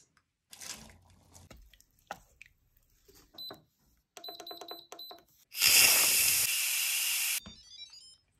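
Instant Pot Duo electric pressure cooker beeping as its control-panel buttons are pressed: one beep, then a quick run of short beeps. About five and a half seconds in, a loud hiss of steam venting from the pressure release valve lasts nearly two seconds and cuts off suddenly.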